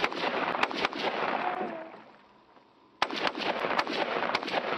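Rifle fired in rapid strings of shots, each crack trailing an echo. A run of shots in the first second or so, a lull of about two seconds, then another rapid string starting about three seconds in.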